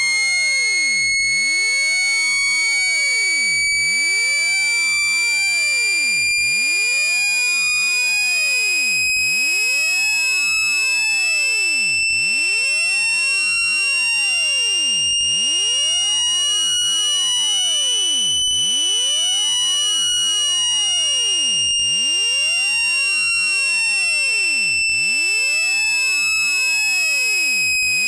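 Synthetic water-ejection tone for clearing water from a phone speaker: one loud, shrill, buzzy electronic tone that climbs slowly in pitch, peaks a little past the middle, then sinks slightly.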